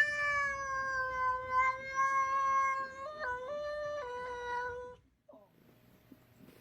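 A cat yowling: one long drawn-out call, level in pitch with two short wavers near the end, that stops abruptly about five seconds in. The cat is upset.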